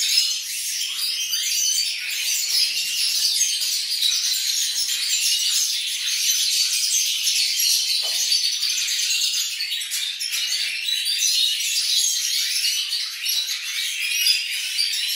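A flock of Siberian goldfinches (Carduelis carduelis major) twittering and singing, several birds at once in a dense, continuous chatter of quick, high, rising and falling notes.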